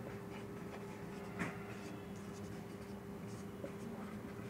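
Felt-tip marker scratching on a whiteboard in short, faint strokes as a word is written.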